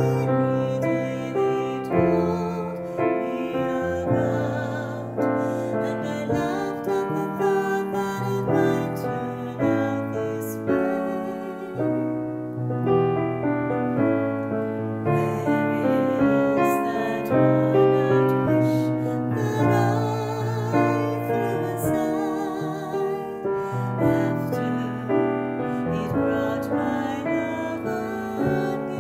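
Woman singing a ballad with vibrato, accompanied by a grand piano.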